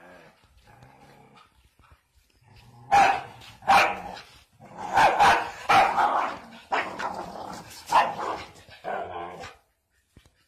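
A dog growling low, then breaking into a flurry of loud barks and snarls from about three seconds in as it lunges at a hen; it stops shortly before the end.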